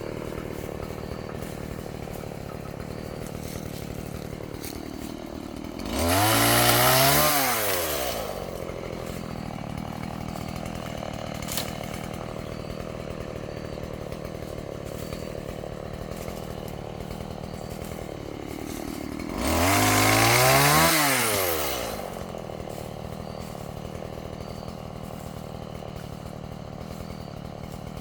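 Two-stroke chainsaw idling steadily, twice brought up to high revs for a couple of seconds, the pitch climbing then dropping back to idle, about six seconds in and again near twenty seconds.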